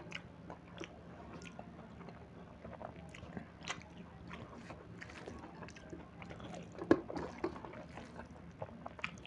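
Close-up wet chewing and lip-smacking of a man eating rice with fried onion greens and dal by hand, in many short irregular smacks, with one louder click about seven seconds in.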